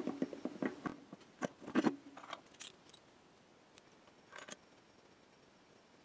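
Light metal clicks and clinks of a single-body SRAM bicycle cassette being slid onto the freehub and seated on its splines, a quick run of them in the first two seconds, then a few scattered clicks and one short rattle a little after four seconds.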